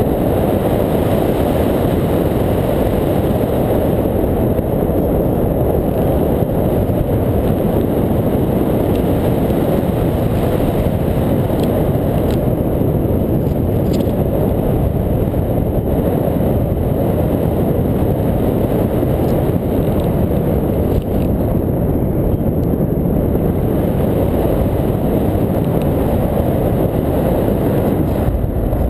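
Steady, low rumble of in-flight airflow buffeting the microphone of a paraglider's harness-mounted camera.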